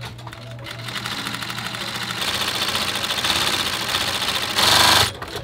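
Industrial sewing machine stitching leather for a hiking-boot upper: a fast, even run of needle strokes that grows louder as it speeds up, is loudest just before it stops near the end.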